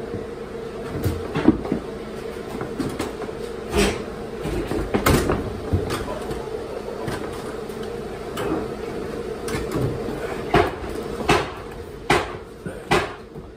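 A sheet-metal ACIQ air handler cabinet being lifted and manoeuvred into place. It gives irregular knocks and bumps as it meets the wooden framing and the stepladder, with a steady hum underneath.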